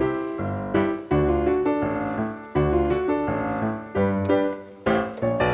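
Background piano music: a bouncy tune with struck notes over a steady bass beat.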